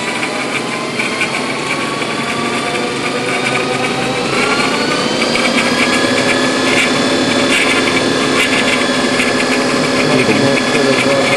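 Impulse 9 electric motor on a Zilla controller spinning the drive-line on its first run. Its whine rises in pitch about four seconds in as the speed goes up, then holds steady, over a fast rattle of clicks.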